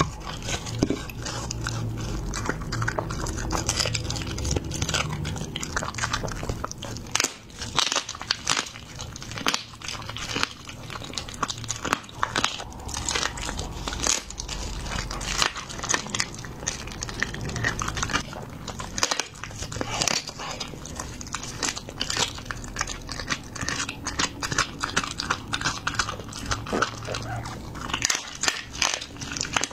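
A dog biting and chewing raw chicken and other raw food: a dense, irregular run of crunches and wet chewing.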